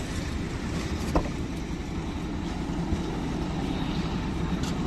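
Steady low rumble of a running vehicle, with a short click about a second in.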